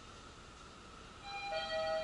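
Faint background with a steady high tone, then a bit over a second in an electronic chime starts: several steady pitched tones sounding together and growing louder, like a station platform chime.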